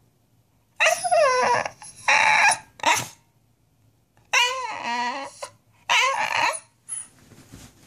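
A corgi howling in a run of about five short, wavering calls, the pitch sliding up and down within each.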